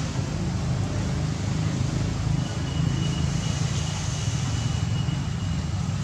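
Steady low rumble of outdoor background noise, with no distinct events. A thin, steady high tone sounds from about two seconds in until near the end.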